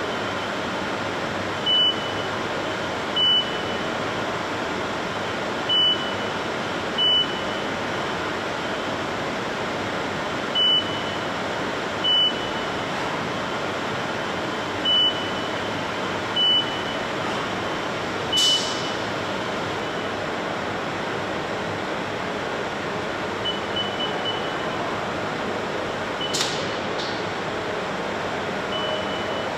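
Haas UMC-500 running a rectangular block probing cycle with its spindle touch probe: short high electronic beeps come in four pairs, the two beeps of each pair about a second and a half apart, then one more, one beep per probe touch on the block's sides. A steady machine hum underneath, with a couple of brief high hisses later on.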